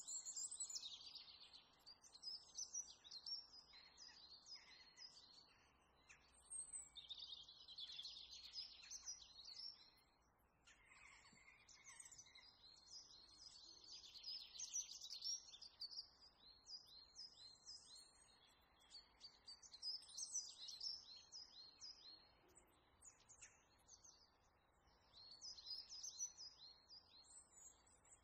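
Small birds chirping and twittering in quick, faint phrases a few seconds long, with short pauses between them.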